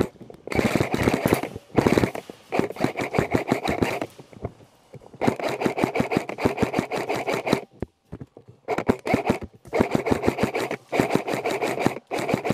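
Airsoft rifle firing on full auto in a series of bursts, several of them one to two seconds long, with short pauses between.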